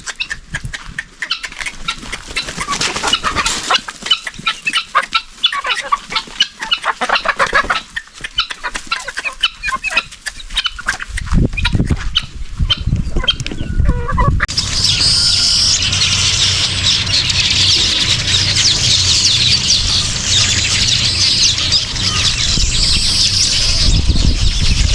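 Free-range guinea fowl calling, a rapid chatter of harsh, clipped calls. About halfway through the calls stop suddenly and give way to a steady high hiss over a low rumble.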